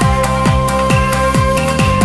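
Electronic dance music: a steady kick drum at about two beats a second under held synth notes.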